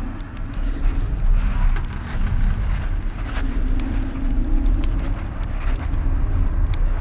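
Spooky dungeon ambience: a steady deep rumble with a low humming tone that swells in the middle, and scattered sharp clicks and crackles.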